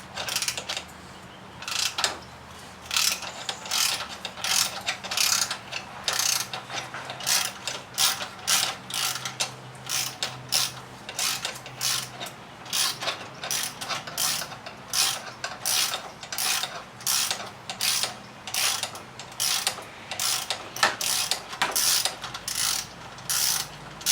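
Socket ratchet clicking in repeated short strokes, about two a second, as an 11 mm exhaust clamp bolt is loosened and backed out.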